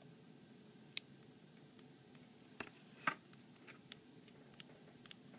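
Small sharp clicks and ticks of fingers working a flex-cable connector on an opened iPad mini, as the digitizer cable is pressed into its socket on the logic board. One crisp click comes about a second in and two more around three seconds, with fainter ticks between.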